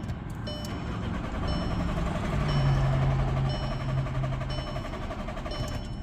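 Volkswagen Passat TDI's 2.0-litre four-cylinder diesel being cranked by its starter motor for about four seconds without firing or catching: a crank-but-no-start condition.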